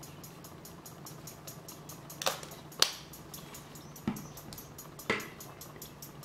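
Four sharp clicks of plastic earbuds and cable being handled, between about two and five seconds in. Under them, faint tinny music with a fast regular beat leaks from the earbuds, over a steady low hum.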